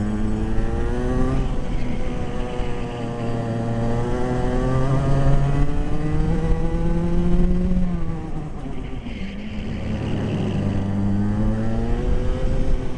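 Racing kart engine heard onboard at full throttle, revs climbing steadily along the straights and dropping off sharply for corners: a short dip about a second and a half in, then a long climb that falls away about eight seconds in, and another climb that drops near the end.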